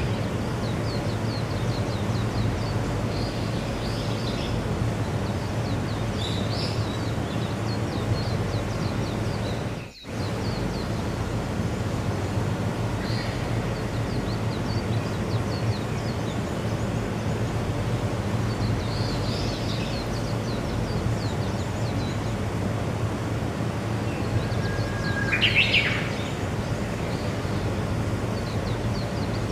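Outdoor nature ambience: a steady background noise with small birds chirping faintly throughout and one louder bird call near the end. The sound drops out briefly about a third of the way through.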